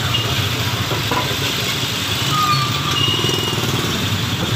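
Close street traffic: motorcycle and tricycle engines running as vehicles pass, giving a steady engine drone with a pulsing engine note in the middle.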